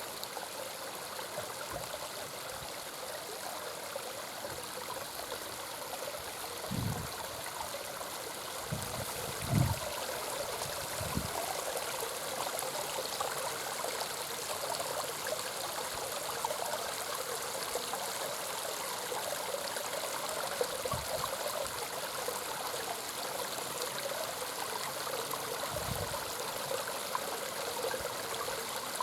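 Water falling over a homemade sandstone garden waterfall and splashing and trickling steadily into a small pond. A few soft low bumps come through now and then.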